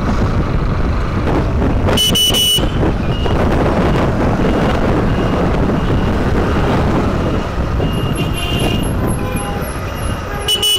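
Honda X-Blade 160 motorcycle riding through city traffic: steady engine and road noise, with a short horn toot about two seconds in and another near the end.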